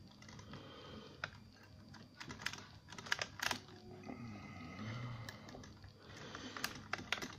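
Octo rake scraping back and forth in the keyway of an Ingersoll rim cylinder under heavy tension, giving faint, irregular clicks as the tumblers are raked.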